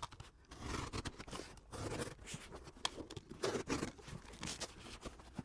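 Taped cardboard box being handled and turned over: irregular rustling, scraping and light knocks of cardboard and packing tape under the hands.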